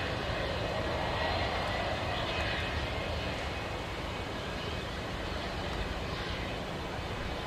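McDonnell Douglas DC-10 freighter's three jet engines running steadily at low power as it taxis: an even rumble with a faint high whine.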